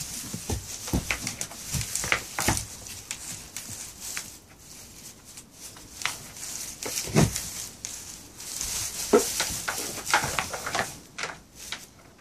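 Two horned goats butting and pushing heads in a dominance fight: horns knocking together and bodies thudding, with the hardest knock about seven seconds in. Hooves shuffle through rustling straw.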